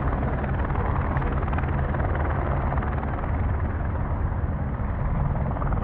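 Rescue helicopter in flight: steady rotor chop and engine sound.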